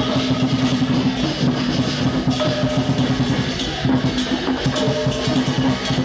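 Chinese temple procession music: fast, steady drumming with a bright metallic hiss above it and held low notes that break off and resume.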